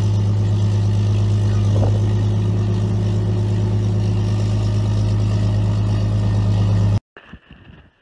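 A machine running with a loud, steady low hum that holds unchanged, with a faint short rising sound about two seconds in; it cuts off suddenly about seven seconds in.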